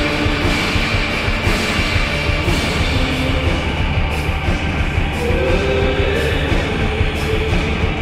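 Dark, noisy rock song playing: dense distorted guitars and drums, with a sung vocal line in the mix.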